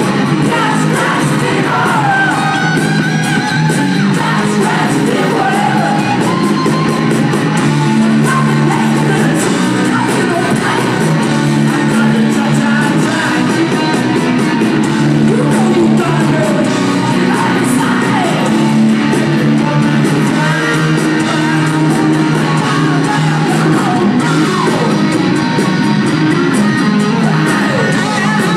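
Live hard rock band playing loud and without a break: electric guitars, drum kit and a sung vocal, heard from within the audience in a concert hall.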